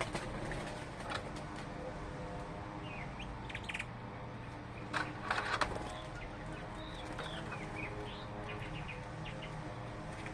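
Small birds chirping in short, scattered calls and brief gliding notes, with a louder flurry about five seconds in, over a steady low hum.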